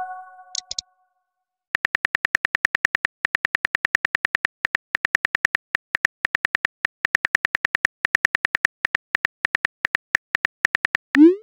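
Phone keyboard key clicks, rapid and uneven, as a text message is typed, ending near the end in the short rising swoosh of the message being sent. In the first half second, the tail of a ringing tone fades out.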